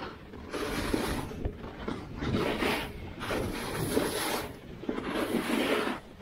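Edges scraping through snow in a run of linked turns: four hissing swishes, about one every second and a half.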